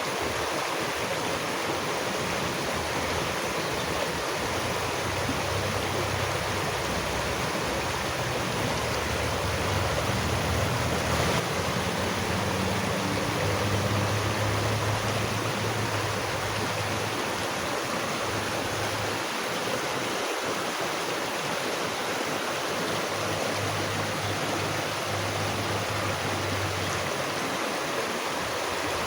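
Steady rush of flowing water, a stream's even noise, with a faint low drone that comes and goes through the middle.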